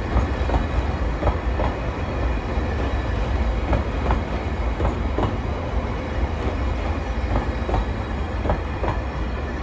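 Railway cars of a new E721 series electric train, towed unpowered, rolling slowly past: a steady low rumble of wheels on rail with irregular clicks as the wheels cross rail joints.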